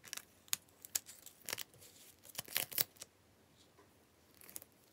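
A paper sticker being peeled off its translucent backing sheet and handled: short crackling paper rustles in irregular bursts, quieter for about a second and a half after the three-second mark, then a few more near the end.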